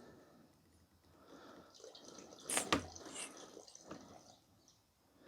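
Plastic polish squeezed from a squeeze bottle straight onto a headlight lens, with a short wet squirt about two and a half seconds in and faint handling sounds around it.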